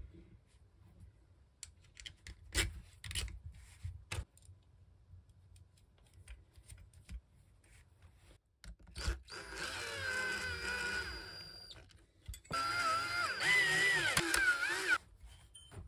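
Aluminium parts clicking and knocking as they are handled and fitted together, then a cordless drill-driver runs in two bursts of a couple of seconds each, driving screws into the aluminium plates. The second burst wavers in pitch.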